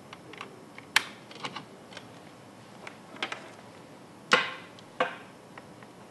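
Irregular sharp plastic-and-metal clicks of test leads being plugged into and clipped onto a bench power supply's terminals while a circuit is wired up, about five clicks, the loudest near the end.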